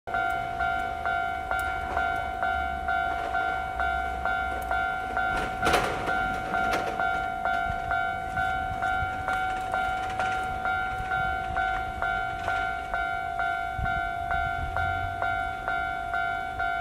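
Japanese railway level-crossing alarm ringing its electronic bell, a two-tone ding repeated evenly at nearly three strikes a second, the warning that a train is approaching. A low rumble runs underneath, with a brief loud rushing burst about six seconds in.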